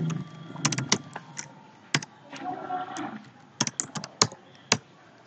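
Computer keyboard keys clicking in short, irregular runs of keystrokes as a command is typed.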